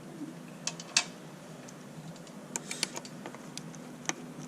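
Irregular sharp clicks and taps of hand tools on metal as the Sprinter's EGR valve bolts are worked loose, over a faint steady low hum. The loudest click comes about a second in, and a quick cluster follows a little past halfway.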